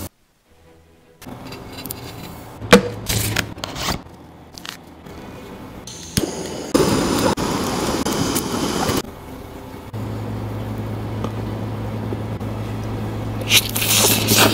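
Oyster grilling on a wire mesh over a gas burner: scattered clicks and scraping with one sharp click, then a couple of seconds of sizzling and bubbling juices in the shell. Near the end comes a slurp as the oyster is sucked from a small dish, over a steady low hum.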